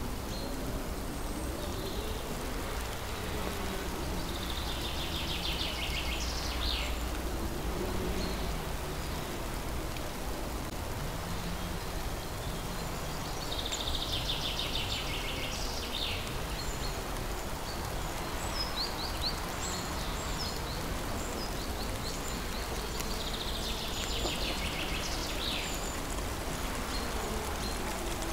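Steady rushing ambient noise, like rain or running water, with a high rasping, insect-like chirr that comes back three times about ten seconds apart, and faint slow tones gliding up and down underneath.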